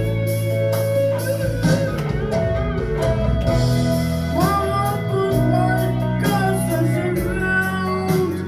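Guitar-led rock music with drums: sustained chords under a gliding lead melody.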